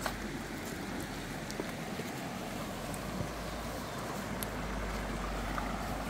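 Mountain stream flowing over stones, a steady wash of water noise, with a few light clicks on top.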